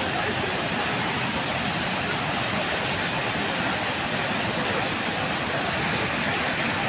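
Steady rushing roar of a waterfall in spate and floodwater pouring down steps and across a flooded road.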